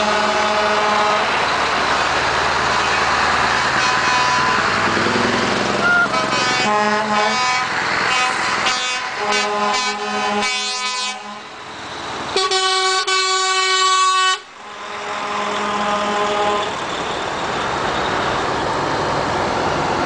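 Truck air horns sounding again and again over the diesel engines of passing lorries. There is a blast at the start, a run of short rapid toots around the middle, and a steady two-second blast that cuts off sharply, followed by another shorter blast.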